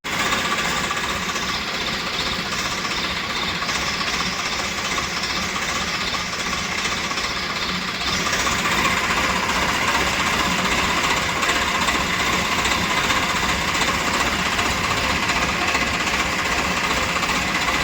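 Tractor diesel engine running steadily with a fast, even knock, getting a little louder about eight seconds in.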